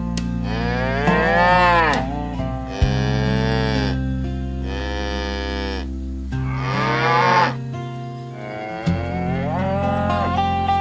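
Cows mooing: about five long calls one after another, several rising and then falling in pitch, over background music with steady low chords.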